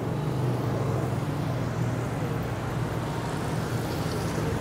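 Street traffic noise: a vehicle engine running steadily close by, a constant low hum over the road noise.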